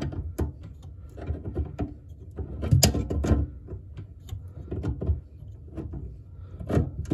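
Tongue-and-groove pliers clicking and knocking against a water shutoff valve under a sink as the jaws are set and the valve is turned, a string of irregular short clicks and knocks.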